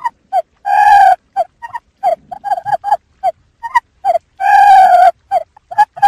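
Quail calling as a decoy (lure) call for trapping quail: a run of short, clipped, pitched calls at about three to four a second, broken twice by a longer, louder drawn-out call, about a second in and again about four and a half seconds in.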